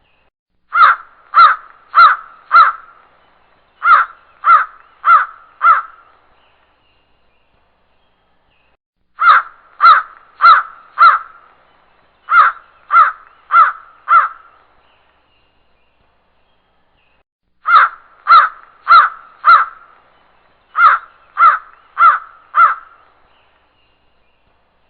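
Crow cawing in three bouts, each of two quick runs of four caws at a little under two a second, with a few seconds of silence between bouts.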